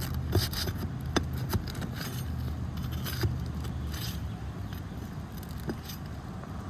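Wind rumbling on the microphone, with scattered sharp clicks and scrapes as an asphalt roof shingle is worked loose. The wind rumble eases about four seconds in.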